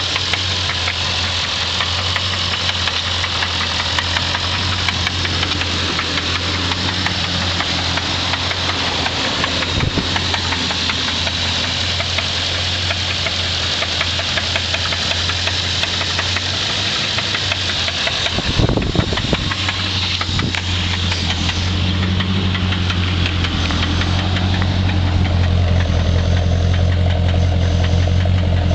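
1990 Infiniti Q45's 4.5-litre V8 idling with a knocking noise, which the owner takes for rod knock. The running gets a little louder over the last few seconds.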